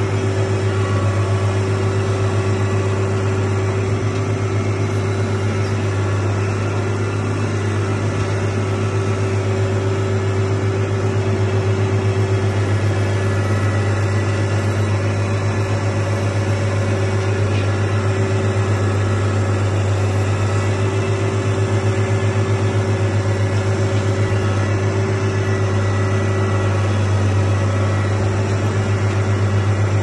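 Feed mixer wagon running while it unloads hay feed: a steady, unchanging low engine and machinery drone with a constant hum.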